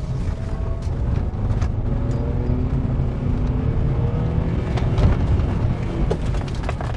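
Engine and road noise heard from inside the cabin of a Honda Element with its 2.4-litre four-cylinder, the engine pitch rising a little as it pulls away, during hard stops made to reset the brake master cylinder. A sharp knock comes about five seconds in and a few clicks near the end.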